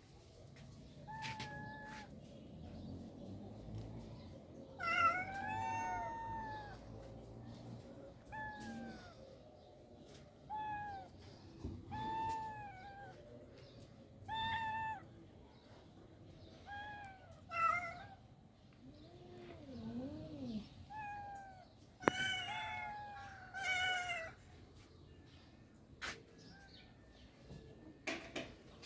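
Cats meowing over and over: about a dozen short meows, each rising then falling in pitch, some overlapping one another. A few sharp clicks are heard among them, the loudest about two thirds of the way through.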